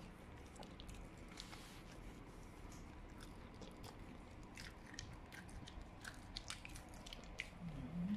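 West Highland White Terrier chewing a toothbrush-shaped dental chew: a faint, irregular string of crunches and clicks from its teeth on the chew. A short, low vocal sound comes near the end.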